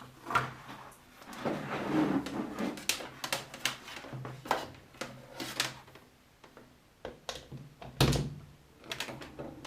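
Knocks, clicks and clatter of a bench fume extractor being moved into place and switched on, the loudest knocks about half a second in and about eight seconds in, over a faint low hum.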